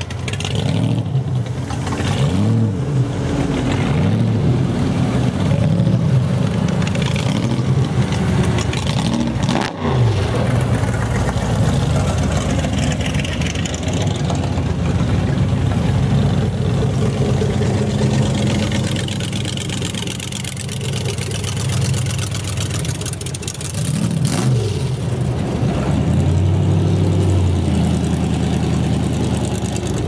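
Classic cars and hot rods driving past one after another, their engines running loud and revving up several times as each pulls by.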